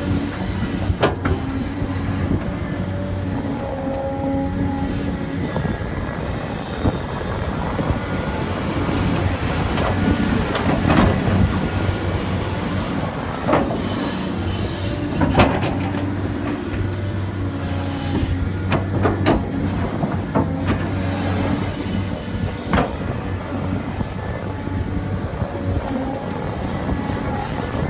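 Tracked excavator's diesel engine running steadily under hydraulic load while it digs, with several sharp clanks and scrapes of the steel bucket biting into dirt and stones.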